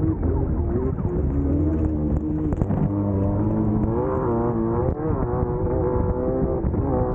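Class 1600 off-road race car's air-cooled VW 1600 engine running hard, its pitch rising and falling with the throttle over a constant low rumble.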